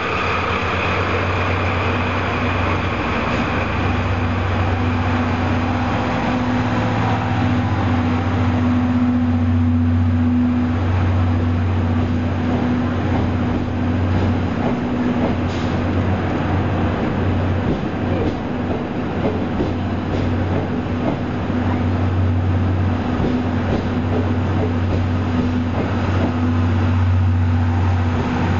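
Passenger train of green-and-yellow coaches rolling slowly past a station platform, with a steady low hum and the noise of its running.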